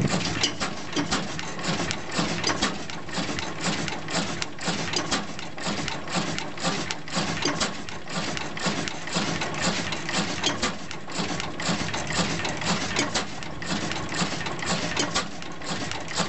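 A 1907 Blackstone 12hp single-cylinder kerosene oil engine running, with a steady, rapid mechanical clatter from the engine as its flywheels turn.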